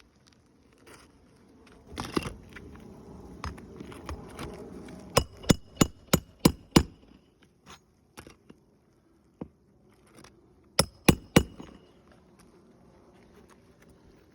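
Hammer striking roofing nails while replacing shingles: a rough shuffling noise, then a quick run of six sharp, ringing blows about four a second, and three more a few seconds later.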